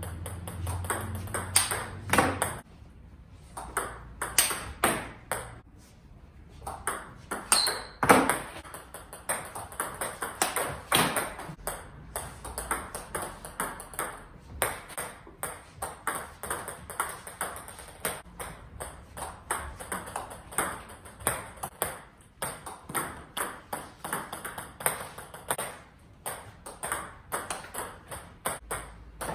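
Table tennis ball clicking off rubber paddles and the table in short exchanges: short serves answered by hard attacking backhand receives. Sharp, irregular clicks, with a few louder cracks in the first half.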